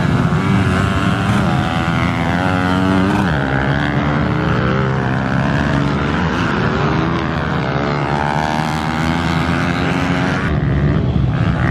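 Pit bike engine revving up and down repeatedly, its pitch rising and falling over a few seconds at a time.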